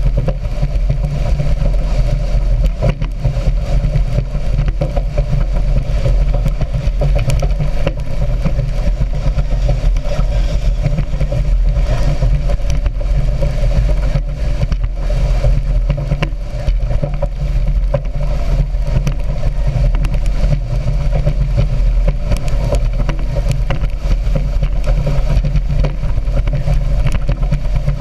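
Speedboat engine running steadily at speed, loud and unbroken.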